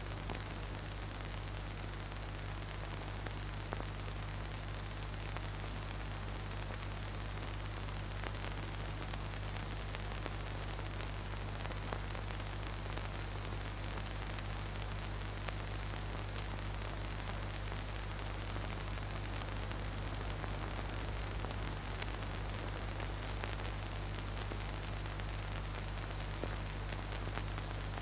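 Steady hiss with a low, even hum underneath and a few faint ticks: the background noise of an old film soundtrack with no other sound on it.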